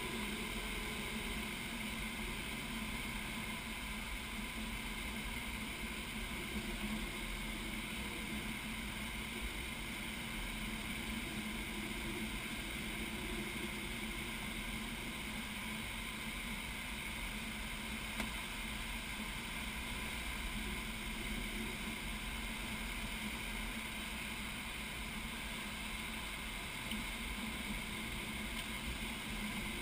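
Steady rush of air over a glider's canopy in flight, heard from inside the cockpit.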